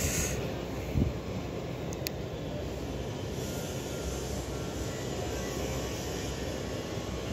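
Steady low rumble of outdoor background noise, with a soft knock about a second in and a faint click about two seconds in.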